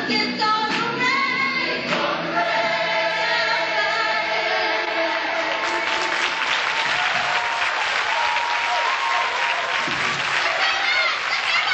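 Large group of voices singing together in long held notes, with audience applause breaking in about halfway through and going on under the singing.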